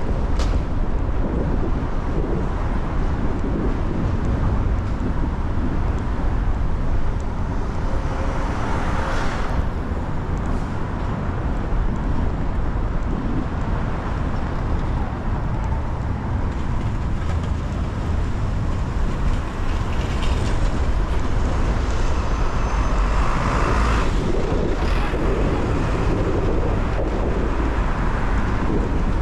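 City street traffic in rain: a steady low rumble of vehicles over the hiss of rain and wet roads, with passing vehicles swelling louder a couple of times.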